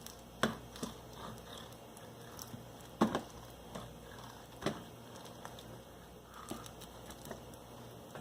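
Soft crackling and scraping of an uncapping knife slicing wax cappings and burr comb off a honeycomb frame, broken by a few sharp knocks, the loudest about three seconds in.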